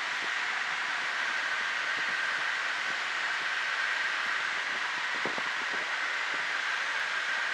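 Steady cabin noise of a Cessna 152 in flight, its four-cylinder Lycoming engine and the slipstream blending into an even hiss.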